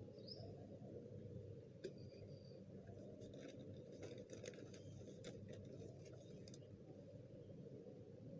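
Faint crinkling and rustling of a thin plastic mailer bag as a hand reaches inside and pulls out a seed packet, in scattered small crackles through the middle of the stretch, over a steady low hum.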